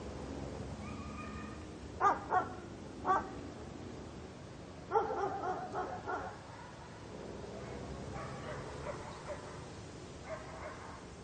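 A dog barking over a steady outdoor background. Two quick barks come about two seconds in and another a second later, then a rapid run of barks about five seconds in, with fainter barks near the end.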